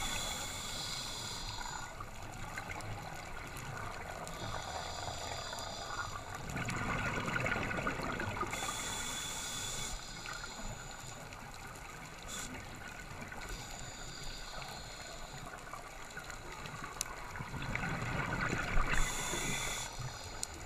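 Scuba breathing underwater, picked up through the camera: a hiss from the regulator on each inhalation and bubbling on each exhalation, in a cycle of about four to five seconds.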